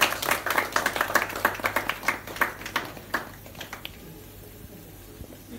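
A small group of people clapping their hands in a room, the claps thinning out and dying away about three to four seconds in.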